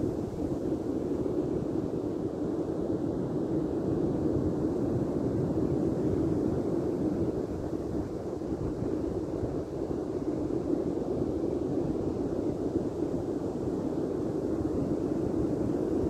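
Steady low wind rumble buffeting the microphone, mixed with the rush of surf breaking on the beach.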